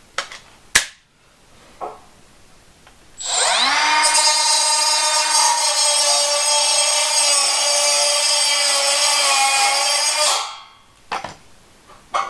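Small handheld power tool spinning up with a rising whine, then running steadily for about seven seconds while cutting a notch in the sheet-metal housing of a fluorescent light fixture, before winding down. A few short clicks and knocks of handling come before and after it.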